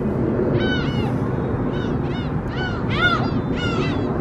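Gulls calling: a run of short cries that rise and fall in pitch, about two a second, over a steady low background noise.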